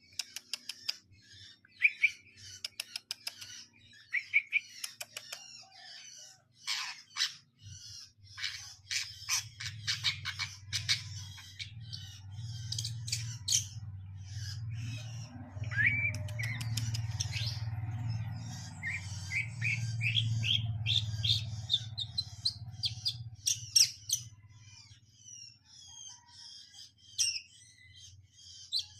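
Long-tailed shrike (cendet) singing a rapid, varied song of chirps and quick clicking notes, with a run of short rising notes about twenty seconds in. A low hum sits underneath through the middle of the song.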